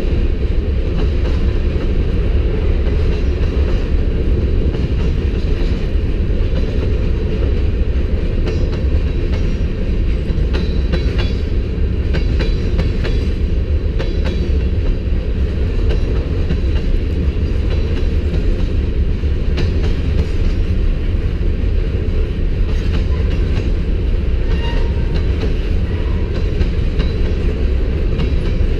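Freight train rolling past at close range: a steady low rumble, with the wheels clicking over the rail joints here and there.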